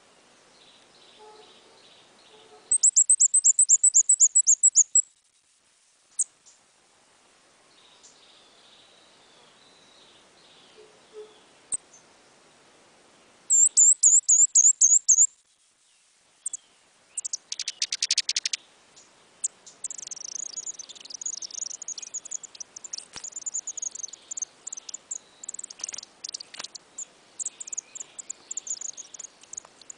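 Sooty-headed bulbul decoy bird calling: two bursts of rapid, high chirps of about two seconds each, then, after a brief rustle, a long run of quicker chattering chirps through the last third.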